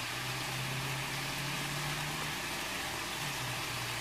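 Pork ribs sizzling as they sear in a nonstick frying pan, an even steady hiss. A low hum runs under it for the first two seconds or so.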